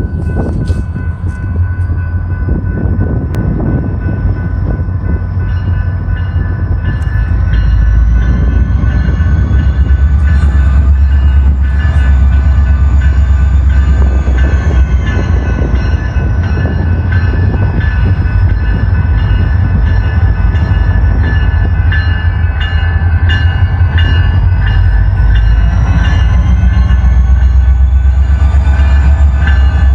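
EMD diesel-electric locomotive working under power, its turbocharger giving a high whine that rises and falls slowly over a deep engine rumble. It gets louder about eight seconds in.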